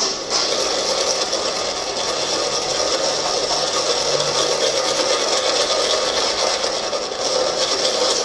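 Continuous abrasive scraping and rubbing from cleaning work on a rusty, muddy mini dirt bike part.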